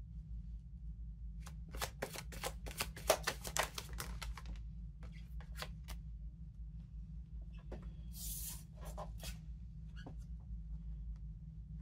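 Oracle cards being shuffled by hand: a quick run of dense card clicks from about a second and a half in to about four seconds, then scattered single snaps and a short hiss of sliding cards near eight seconds, over a steady low hum.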